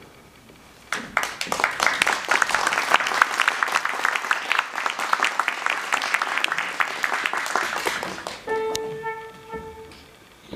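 Audience applauding for about seven seconds, fading out, then a single flute sounds one steady held note for about a second.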